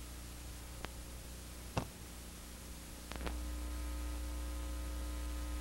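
Steady electrical hum and hiss with a few sharp clicks, the loudest about two seconds in. The hum grows louder and steadier about three seconds in. This is the background noise of a video transfer of silent film footage.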